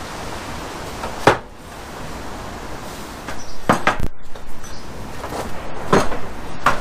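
Wooden knocks and clunks as pressure-treated lumber door-frame pieces are handled and fitted together: one sharp knock about a second in, then several more in the second half.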